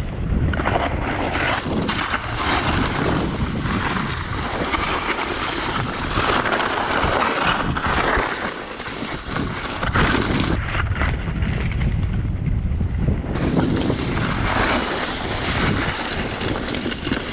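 Wind rushing over the microphone and the skis of a Sno-Go snow bike hissing and scraping over snow on a downhill run. The hiss thins out for a few seconds a little past the middle, then comes back.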